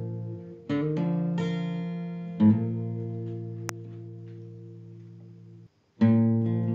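Background music: solo acoustic guitar, chords struck and left to ring and fade. The music cuts out for a moment near the end before the next chord comes in.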